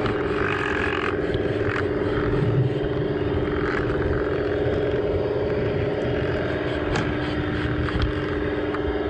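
LGB garden-railway model locomotive running along the track: its electric motor and gearbox give a steady, even-pitched hum over the rumble of the wheels on the rails, with a couple of sharp clicks near the end.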